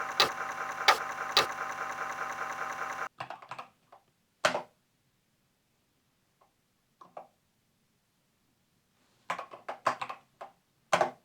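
Keys being pressed on a Commodore 64 Ultimate keyboard: scattered single keystrokes and a short run of clicks near the end. For the first three seconds a steady hum sounds under the clicks, then cuts off suddenly.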